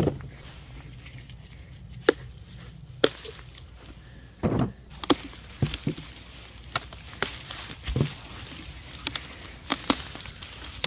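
Bell peppers being picked by hand: about a dozen sharp, irregular snaps and clicks of stems breaking, with a longer rustle about halfway through.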